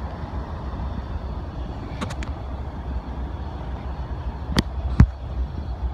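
CSX freight train rolling past: a steady low rumble of wheels on rails, with a few sharp knocks, the loudest about five seconds in.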